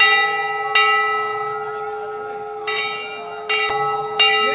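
Hanging brass temple bell struck several times by its clapper at uneven intervals. Each clang rings on into the next.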